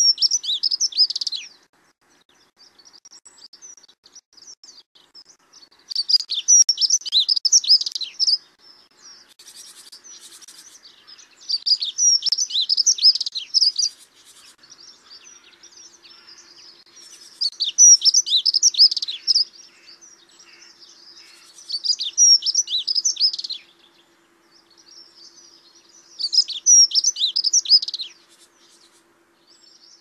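A songbird singing, recorded birdsong: a loud, rapid, high-pitched phrase about two seconds long repeated six times, roughly every five seconds, with softer twittering between the phrases.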